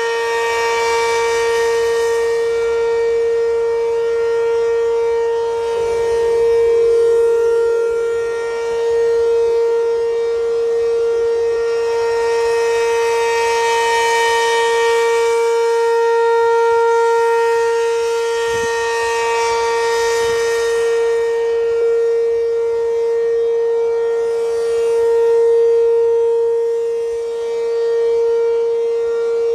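ACA P-15 outdoor warning siren sounding its steady alert signal. It is loud and holds one pitch throughout, with its loudness and brightness swelling and fading slowly every few seconds as the rotating siren head sweeps past.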